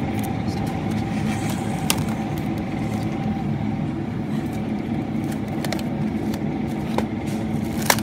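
Steady low hum of a supermarket's refrigerated display case, with a few sharp clicks and crinkles as plastic-wrapped foam meat trays are picked up and set down.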